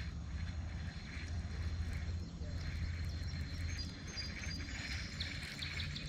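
Baitcasting reel being cranked to retrieve a lure, a faint pulsing whir, over a low steady rumble, with a few short high chirps near the end.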